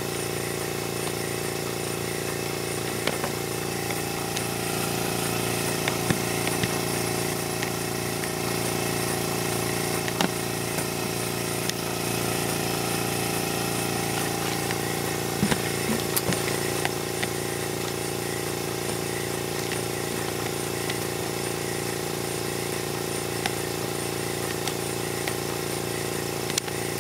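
Small electric air compressor running with a steady hum while it feeds air to a model beam steam engine at about 7 psi. A few light clicks now and then.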